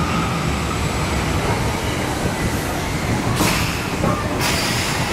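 Roller coaster train rolling slowly through its station, a steady low rumble of wheels on steel track. Two short bursts of hiss come late on.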